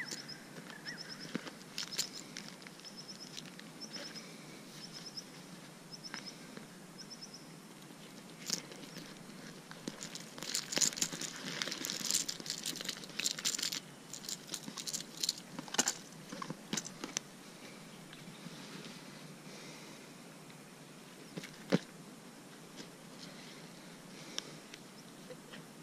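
Handling noise as a small bass is unhooked with pliers and laid on a measuring mat beside a plastic bag: scattered clicks and plastic crinkling, densest in a cluster of crackles about ten to fourteen seconds in. A faint high chirp repeats about every second through the first several seconds.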